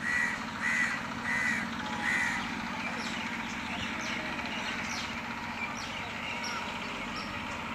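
A crow cawing four times in quick succession, about half a second apart, followed by faint small-bird chirps over a steady low hum.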